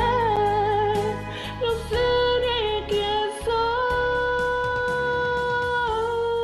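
Woman singing a slow ballad over instrumental accompaniment, holding long notes with vibrato; a long steady note steps down in pitch about six seconds in.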